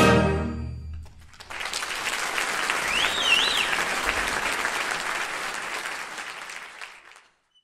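Concert band's final held chord cutting off in the first second, then audience applause with a rising-and-falling whistle about three seconds in, the applause dying away near the end.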